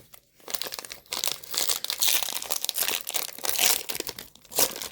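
Plastic wrapper of a Topps trading card pack crinkling and tearing as it is ripped open by hand: a dense, irregular crackle of many sharp little snaps.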